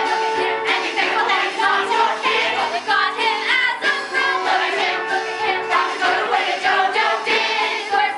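Stage musical cast singing together in chorus over instrumental accompaniment.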